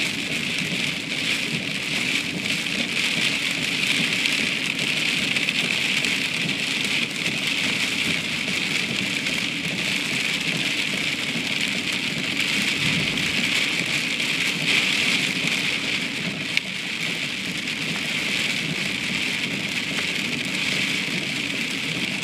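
Rain pelting a car's windshield and roof during a thunderstorm, heard from inside the car as a steady, dense hiss.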